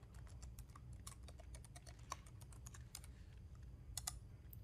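Faint computer keyboard typing: a quick run of key clicks, with a slightly louder pair of clicks about four seconds in.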